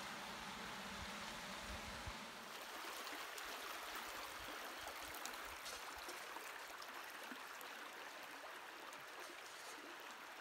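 Shallow creek water running steadily over sandstone slickrock. A low rumble underneath stops about two seconds in.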